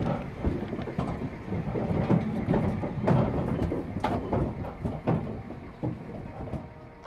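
Livestock truck loaded with calves: a low rumble with irregular knocks and rattles, loudest in the middle and fading toward the end.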